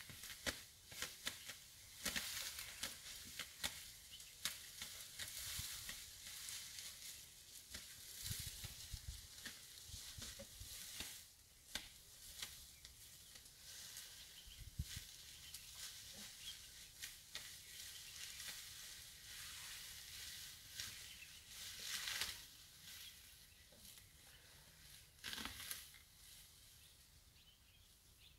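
Faint crackling and rustling with many small clicks and a few soft low thumps in the first half.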